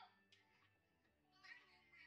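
Near silence: the episode's sound turned very low, with faint background music and a brief faint line of dialogue about one and a half seconds in.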